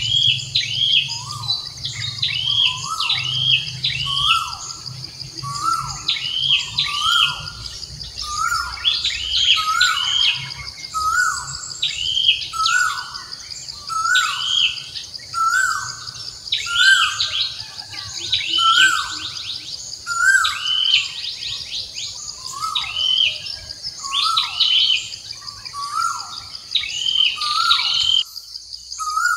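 Birds calling over and over: a falling call repeated about once a second, with higher chirps between, over a steady high insect drone. The sound drops out briefly near the end.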